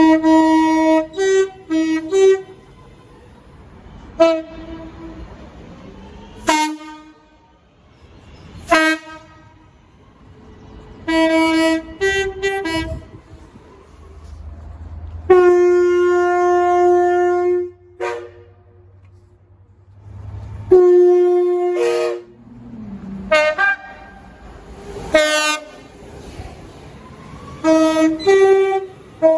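British train horns sounding over and over from one train after another. Most are short blasts that step between two notes, and two long held blasts come about halfway through.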